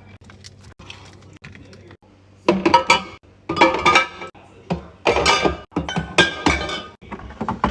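Glass jars and bottles clinking and knocking together as they are set onto fridge shelves: light taps at first, then several louder clinks with ringing from about two and a half seconds in.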